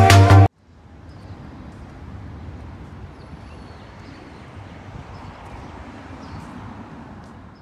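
Music cuts off about half a second in, leaving a steady outdoor hum of distant traffic with a few faint bird chirps.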